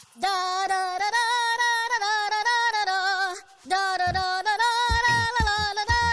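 A cartoon elephant sings a high, wordless tune in short bouncy notes. The tune breaks briefly about three and a half seconds in. Low thumps come in under it from about four seconds.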